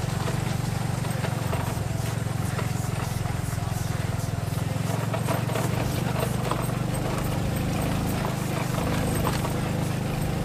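Small motorcycle engine running steadily under load, with irregular rattles and knocks from the bike jolting over a rough, rocky dirt track.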